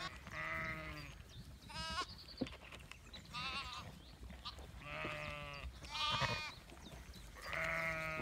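Sheep bleating, mostly lambs: about six separate calls a second or so apart, some high-pitched and some deeper, several with a wavering, trembling pitch.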